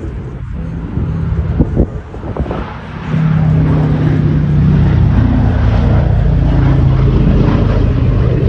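Boeing B-17 Flying Fortress's four Wright Cyclone radial piston engines running, a steady propeller drone that grows much louder about three seconds in.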